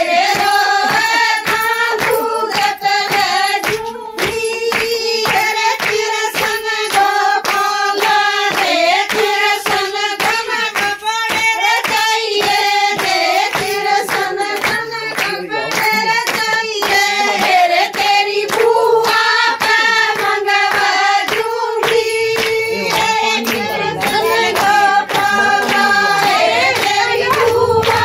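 A group of women sing a Haryanvi folk bhajan to Krishna and Radha together, unaccompanied except for steady rhythmic hand clapping, a few claps a second.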